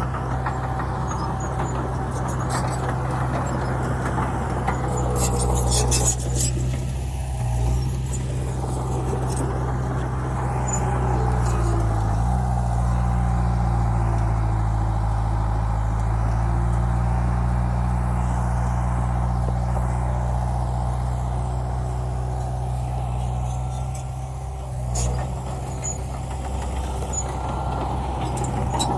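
Bulldozer's diesel engine running steadily under work, its pitch dipping briefly about twelve seconds in. A few sharp knocks come around five to six seconds in and again near the end.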